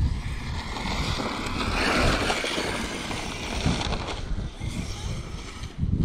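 Arrma Mojave 8S RC truck's brushless motor whining as it drives through tall grass, the sound swelling to a peak about two seconds in and then easing off, with gusty wind buffeting the microphone.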